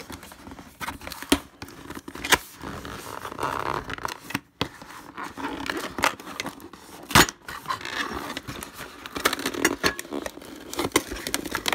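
Cardboard box and its folded cardboard insert being handled: irregular scraping and rustling, broken by scattered sharp knocks and clicks.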